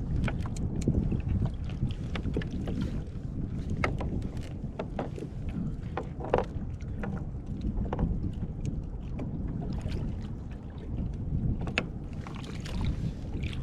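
Wind rumbling on the microphone aboard a small fishing boat, with scattered light clicks and knocks, the loudest about halfway through.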